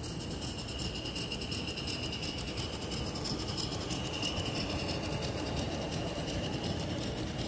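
Large-scale garden-railway model train rolling past on its track: wheels clicking over the rail joints, with a steady high-pitched tone and a low rumble throughout.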